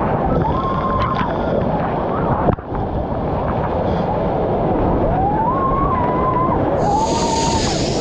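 Steady roar of falling water from a waterfall, with faint drawn-out calls of distant voices over it. The noise breaks sharply about two and a half seconds in.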